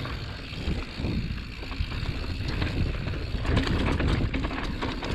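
Mountain bike ridden along a dirt trail: tyres rolling over rough ground with many small rattles and clicks, over a steady low rumble.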